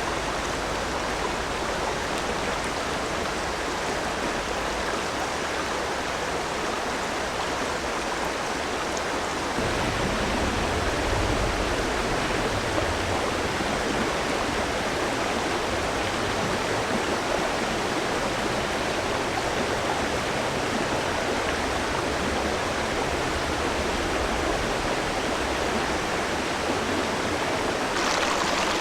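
A river flowing: a steady, even rush of running water, a little louder after about ten seconds.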